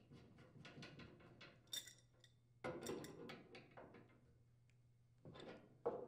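Faint metallic clicks and clinks as a gas line's nut is threaded by hand onto a dryer's gas inlet fitting, then an adjustable wrench is set on the nut and turned to tighten it. A few clinks come closer together about three seconds in and again near the end.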